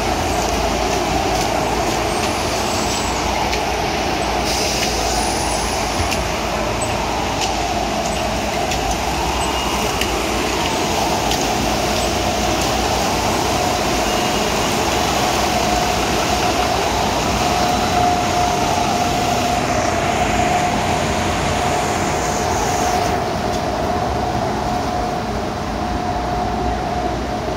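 Floodwater washing across the street and pavement while a city bus's engine runs as it pushes through the water, a steady rushing noise. A faint whine wavers up and down, then holds steady from about halfway through.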